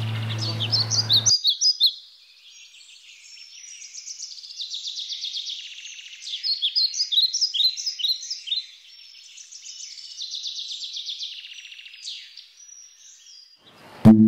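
Small birds chirping and trilling in quick high-pitched phrases. A deep metallic ringing tone dies away in the first second or so and is struck again sharply just before the end.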